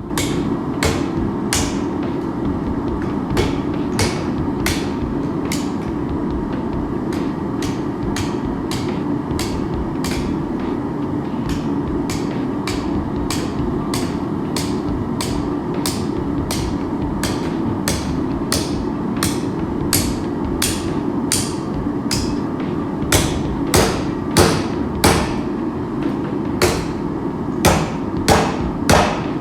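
Hand hammer striking hot coil-spring steel on an anvil in a steady run of blows, about one and a half to two a second, the last several louder. The hatchet stock is being folded over ahead of forge welding. A steady low roar runs underneath.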